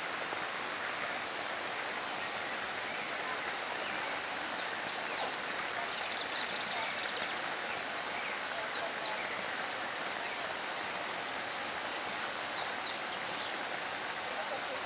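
Steady rainforest ambience, an even hiss, with short high bird chirps in clusters of two or three that come several times. No howling is heard.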